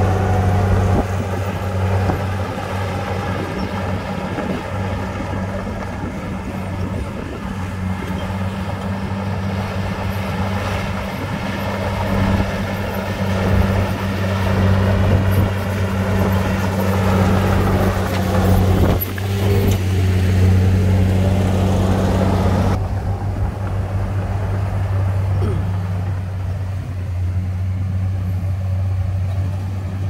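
Komatsu D53P crawler bulldozer's diesel engine running steadily with a deep hum. About three-quarters of the way in, the higher clatter drops away suddenly while the engine hum carries on.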